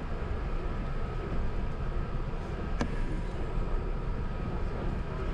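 Airbus A380 cabin noise while taxiing after landing: a steady low rumble with a faint, thin, steady whine over it, and one sharp click about three seconds in.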